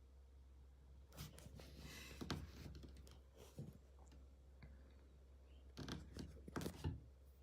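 Rustling and clicking from handling a small object and its packaging, in two short bursts: one about a second in and one near the end, over a faint steady low hum.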